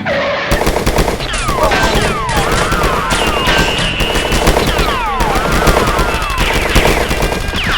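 Rapid automatic-gunfire sound effect: a dense, continuous stutter of shots, with whistling swoops that fall and arch over the firing.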